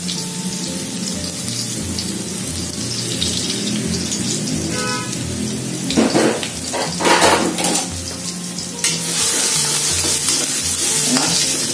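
Freshly pressed garlic sizzling gently in a little oil in a wok over low heat. It is broken by a few clattering knocks about six to eight seconds in, and the sizzle grows louder and brighter near the end as a metal spatula stirs the garlic.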